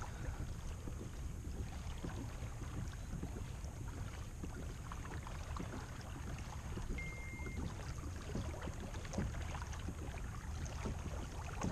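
Outdoor ambience on a kayak: steady low wind rumble on the microphone with scattered faint ticks and knocks. A short high beep sounds once about seven seconds in.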